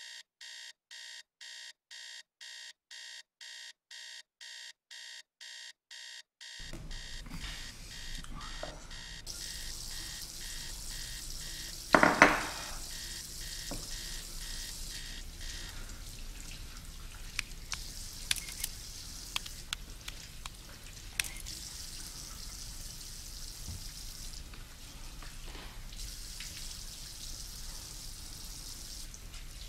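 Electronic alarm clock beeping in a steady on-off pattern, about two beeps a second, stopping about six and a half seconds in. Afterwards room noise, with one louder short sound about twelve seconds in and scattered faint clicks.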